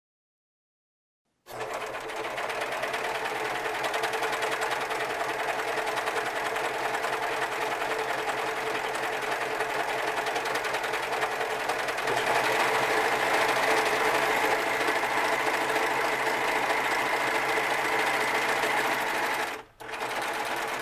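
Singer ProFinish 14CG754 serger starting up at slow speed and stitching along a fabric edge, running steadily with a dense mechanical whirr. It grows a little louder about halfway through and stops shortly before the end.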